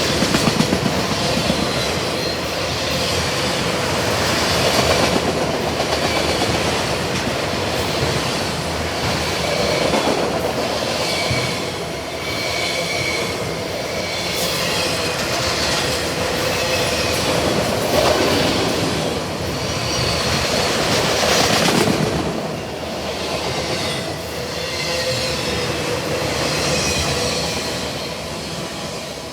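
Autorack freight cars of a long train rolling past: a steady rumble and clatter of steel wheels on rail, with high wheel squeals that come and go. The sound fades away near the end.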